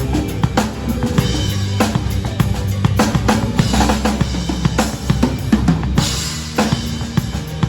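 Pearl Reference drum kit played in a steady rock groove: 22-inch bass drum, snare and cymbals, with two cymbal washes, about three and six seconds in. The drums play over a backing track that carries a sustained bass line.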